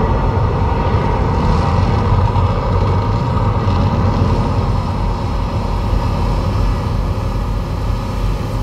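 Deep, steady rumbling from the Mirage volcano show's sound system, slowly dying away as the eruption ends.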